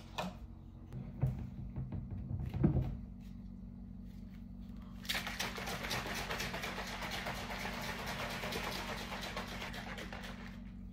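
A few knocks in the first seconds, then from about five seconds in a plastic shaker bottle of milk and protein powder is shaken hard for about five seconds, a dense rattling and sloshing.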